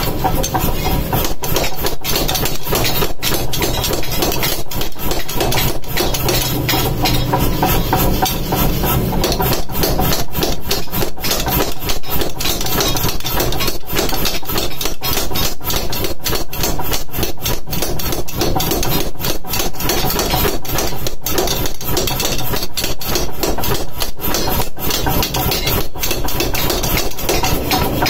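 Power hammer striking a steel cleaver blade forged from a truck leaf spring, in a rapid, continuous run of blows, with the machine's low running hum underneath.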